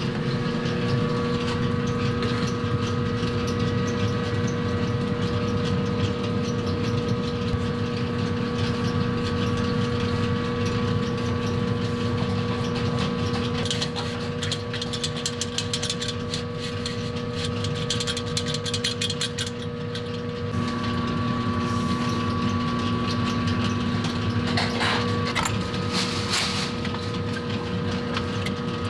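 Steady mechanical hum of running kitchen machinery. In the middle comes a run of scratchy shaking and tapping from a metal flour sifter, and near the end a few clicks.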